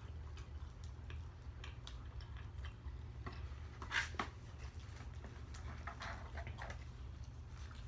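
Close-miked chewing: a person eating with soft mouth clicks and smacks, one louder smack about four seconds in, over a steady low hum.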